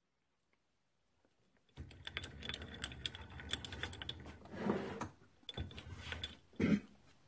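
Quick clicking and light rattling from a Grizzly G9972Z metal lathe as its carriage handwheel is turned by hand, over a low hum that starts about two seconds in. Two louder bumps come near the end.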